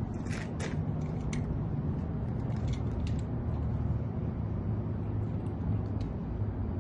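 Scattered light clicks of a locksmith's tools working at a residential door lock, several close together in the first second and a half and then sparser, over a steady low hum.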